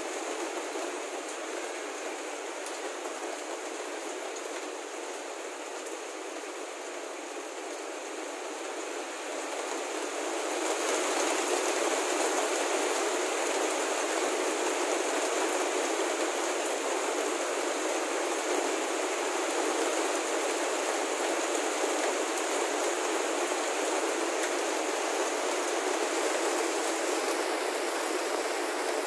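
Heavy rain falling steadily, a dense even hiss that grows louder about ten seconds in as the downpour picks up.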